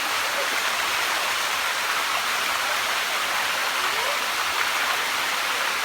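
Waterfall water cascading down rocks: a steady rushing hiss.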